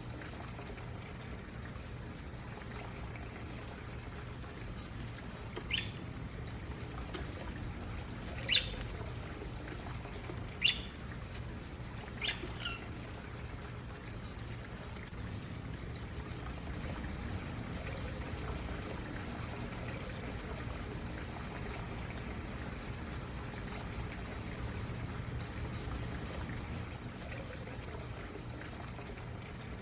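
A small stream flowing and trickling steadily, with five short bird chirps standing out over it in the first half.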